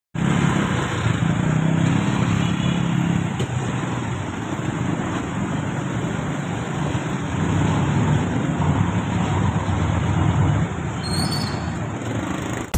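Close-range street traffic in slow, congested stop-and-go flow: engines of motorcycles, cars and a passenger jeepney running close by, with a steady low engine hum that is strongest in the first few seconds.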